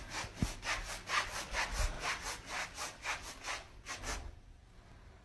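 Rhythmic rasping strokes, about four a second, like sawing or scratching on wood, stopping about four seconds in.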